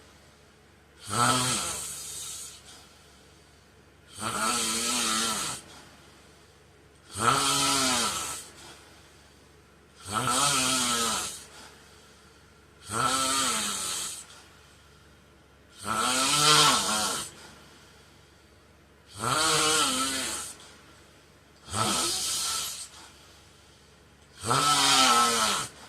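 A heavy-set man snoring in his sleep: a loud snore about every three seconds, nine in all, each about a second long with a low tone that rises and falls.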